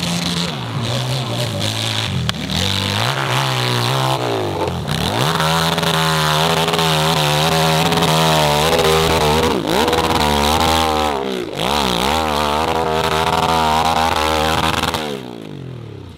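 Dirt bike engine revving hard on a steep hill climb, its revs rising and dropping again and again as the rear wheel digs for grip. The engine noise falls away about a second before the end, as the bike goes over on the slope.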